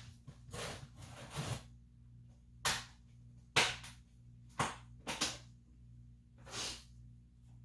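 Hands handling oil-change parts and tools: several sharp clicks and knocks, including a quick double knock about five seconds in, and two rustling swishes, over a steady low hum.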